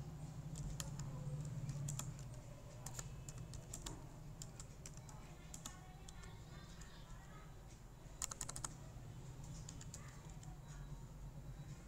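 Computer keyboard keys clicking as someone types, in irregular runs of keystrokes with short pauses and a quick burst of several strokes about eight seconds in, over a steady low hum.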